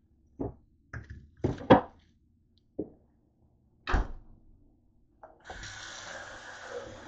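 A handful of knocks and thuds from kitchen things being handled, the loudest about two seconds in. Then a kitchen tap is turned on and water runs steadily into the sink for the last second and a half.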